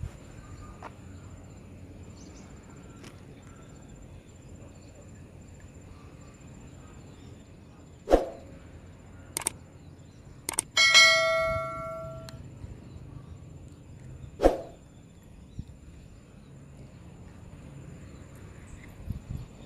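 Subscribe-button animation sound effect: a short swoosh, a few mouse clicks, then a bright bell chime that rings for about a second and a half, and another swoosh near the end. Faint outdoor background underneath.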